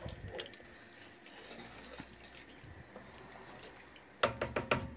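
A spoon stirring thick, steaming aşure (wheat pudding) in a large aluminium pot: soft liquid slopping, then a few louder knocks and scrapes of the spoon against the pot near the end.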